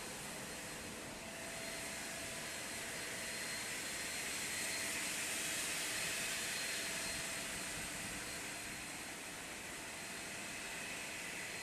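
Steady industrial machine noise from a CNC timber processing centre machining glulam beams: an even rushing hiss with faint steady whines, swelling slightly around the middle.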